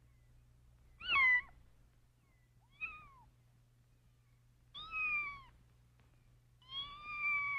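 Kittens, nearly a month old, mewing: four high-pitched mews about two seconds apart, the last one drawn out longer.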